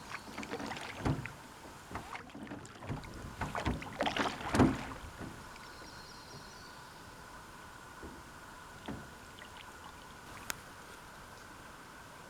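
Small lake waves lapping and slapping against the shore or a boat hull, in irregular splashes over the first five seconds, the loudest about four and a half seconds in, then settling into quieter lapping.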